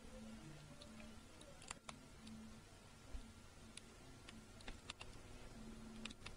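Near silence: faint room tone with scattered small clicks and ticks.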